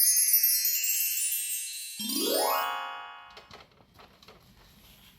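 Edited-in sound effects: a cascade of high tinkling chime tones, joined about two seconds in by a quick upward-sliding tone. Both fade away by about three seconds in, leaving only faint room sounds.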